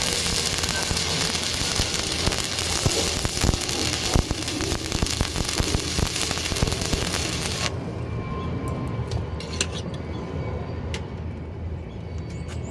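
Stick-welding arc on reinforcing iron, a dense frying crackle and hiss that stops abruptly about two-thirds of the way through, leaving a low rumble with a few sharp clicks.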